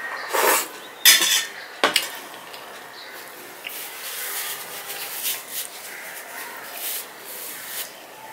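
Stainless-steel plate clattering on the table as it is set down, with the loudest clank just before two seconds in, then softer rubbing and rustling.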